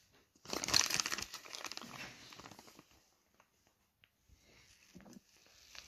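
Plastic parts bag crinkling as it is handled, loud for about two seconds near the start, then softer rustling.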